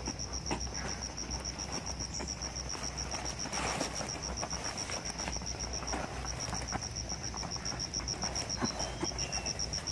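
An insect in the forest calling, a high, rapid chain of evenly spaced pulses that breaks off briefly twice, about six seconds in and about nine seconds in. Faint rustling and light clicks of things being handled lie beneath it.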